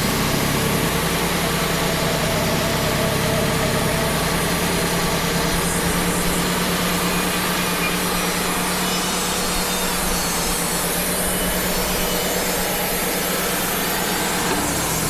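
Wood-Mizer LT35 portable band sawmill running steadily under load, its band blade sawing through a knotty pin oak log.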